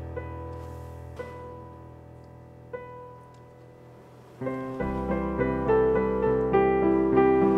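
Digital piano playing slowly. A few soft single notes are left to ring out, then about four seconds in it comes in louder, with fuller chords over low bass notes.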